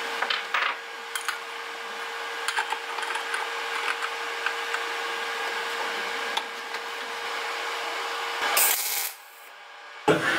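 Locking pliers working on a chainsaw's drive sprocket: metal clicks and rubbing over a steady background hum, with a short loud burst of noise near the end.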